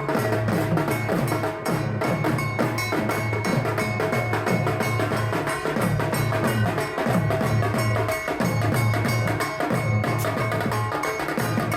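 Dhak, the large Bengali barrel drums, beaten with sticks in a fast, continuous rhythm, many strokes dropping in pitch, over a steady metallic ringing.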